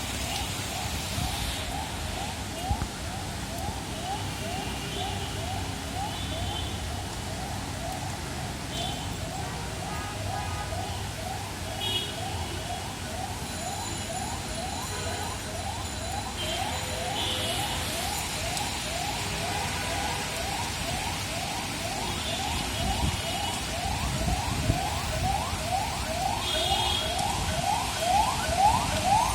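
Steady rain, with a rapidly repeated rising call, about two a second, that grows louder toward the end, and scattered higher chirps.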